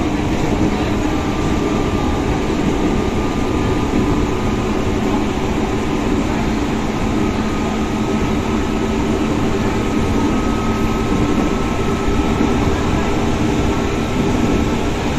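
Steady running rumble of an electric commuter train, heard from inside the carriage: wheels on rail at speed, with a container freight train running close alongside. A faint whine rises slowly in pitch throughout.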